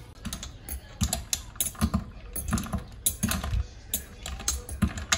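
Ice cubes knocking and clicking against the inside of a glass carafe as its contents of ice, cherries, lemon and mint are pushed about, in irregular small taps with a few duller thuds.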